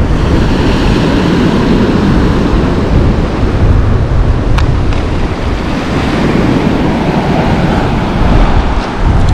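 Sea surf washing on the shore, with wind buffeting the microphone in a heavy, rumbling rush. A single brief click sounds about halfway through.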